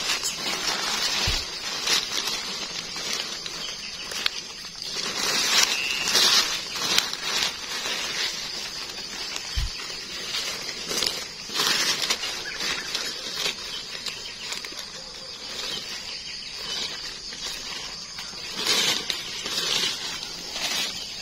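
Leaf litter and undergrowth rustling and crackling in uneven bursts as gloved hands dig through it and pull up termite mushrooms, with a couple of low bumps against the microphone.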